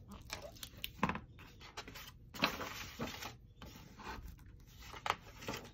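Hands handling a hardcover picture book: the cover is opened and pages turned, giving a series of short paper and board rustles and rubs, the loudest about halfway through.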